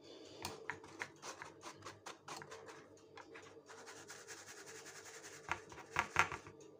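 Flour being sifted through a steel wire-mesh sieve over a mixing bowl: the sieve is shaken and tapped, giving a quick run of soft rasping taps, with a few louder taps near the end.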